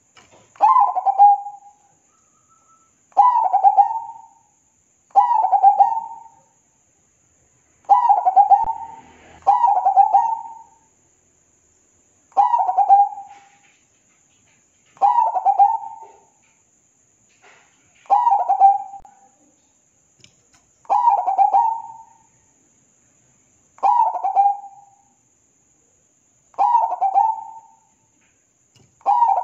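Zebra dove (perkutut) singing its cooing song: a short phrase of quick stuttering coos, repeated about every two and a half seconds, a dozen times in all.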